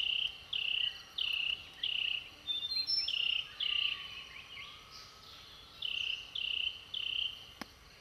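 Insect chirping: a steady run of short, high chirps at one pitch, about one and a half a second, breaking off for a little over a second past the middle and then picking up again.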